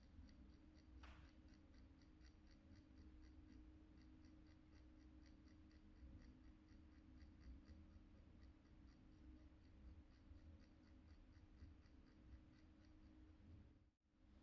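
Permanent-makeup machine running faintly with a steady low hum and a light regular ticking, about four ticks a second, while it is swung in pendulum strokes for powder brows. The sound drops out for a moment near the end.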